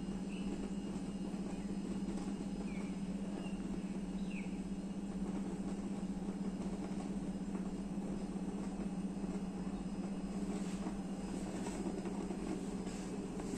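Midea 0.6 L mini rice cooker with water at a rolling boil under its glass lid: steady bubbling over a low drone, with a few sharper clicks near the end.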